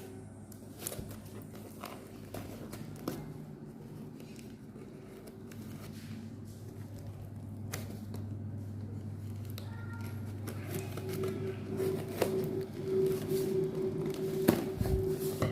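A parcel being handled and opened by hand: scattered clicks, taps and light rustles that grow busier and louder in the second half, over a steady low hum.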